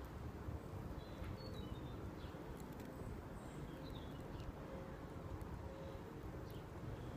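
Low, steady outdoor background rumble with a few faint, high bird chirps, about a second in and again around four seconds.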